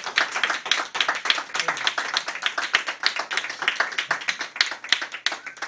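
Applause from a small crowd: many hands clapping quickly, fading out near the end.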